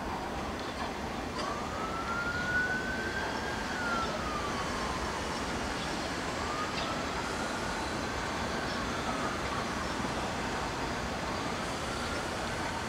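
A siren wailing, its pitch rising and falling in slow sweeps every few seconds, over the steady rumble of an approaching vintage subway train.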